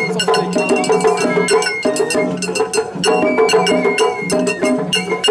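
Japanese festival hayashi music: a high bamboo flute melody over drums, with a small metal hand gong struck in a quick, steady rhythm.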